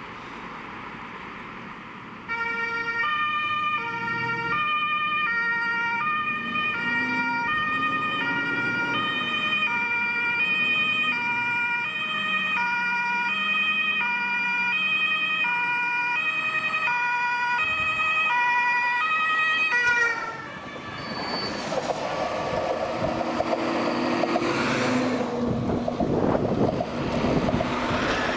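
German fire-brigade two-tone siren (Martinshorn) sounding its alternating high-low 'tatü-tata' from about two seconds in. Near the end of the run it drops slightly in pitch as the vehicle passes, then cuts off. After that comes the engine and tyre noise of emergency vehicles driving past close by.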